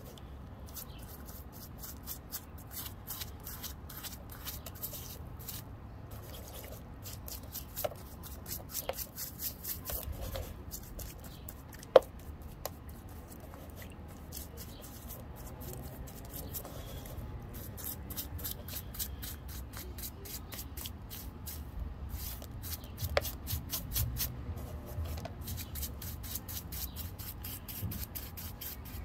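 Paintbrush bristles scrubbing a wet, muddy rock in a shallow tray of water: rapid scratchy strokes with small drips and splashes. A single sharp click stands out about twelve seconds in.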